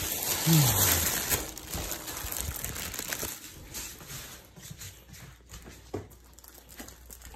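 Plastic shopping bags rustling and crinkling as they are handled, loudest in the first second or so, then fainter handling noise with a single knock about six seconds in.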